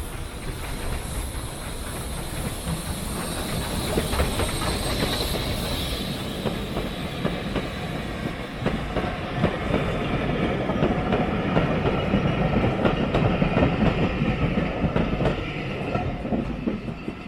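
0-6-0 steam locomotive hauling coaches past, wheels clacking over the rail joints, growing louder as it approaches and easing off near the end.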